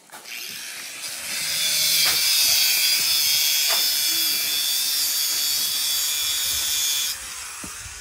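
A power tool running with a high-pitched grinding whine. It gets louder about a second in and cuts off abruptly about seven seconds in.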